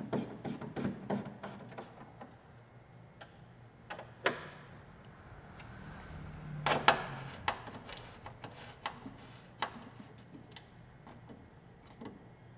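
Hand tool clicking as the bodywork's mounting bolts are run down, with a few sharper knocks about four and seven seconds in.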